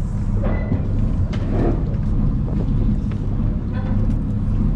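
Yanmar EX38 boat's engine running steadily, a low drone with a few faint clicks over it.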